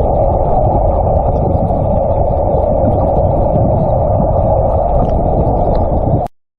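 Steady rushing noise, strongest in the middle and low range, that cuts off abruptly a little after six seconds in.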